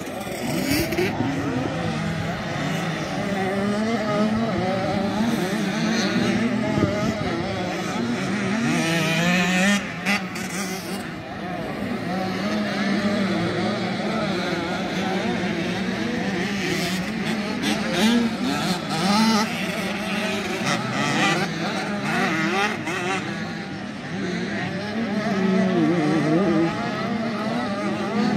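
Several motocross bikes revving and changing pitch as they race around a dirt track, the engine notes rising and falling over one another as riders open and close the throttle through the corners and jumps.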